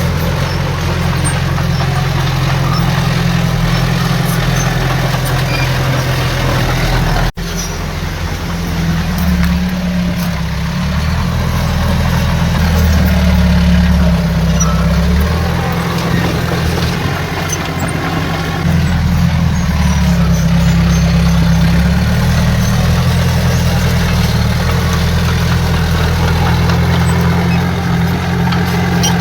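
Heavy diesel engine of earthmoving machinery running steadily, its low note swelling louder for a few seconds at a time, with a brief break in the sound about seven seconds in.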